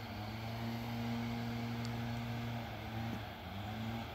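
ER2 electric train approaching: a steady low mechanical hum with a pitched tone, which wavers and glides upward in pitch near the end.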